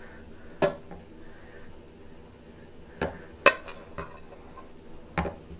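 A spoon knocking and clinking against cookware about five times as vegetable topping is scooped out of a pot and spread onto a pan.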